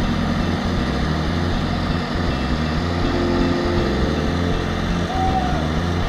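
Backhoe loader's diesel engine idling steadily.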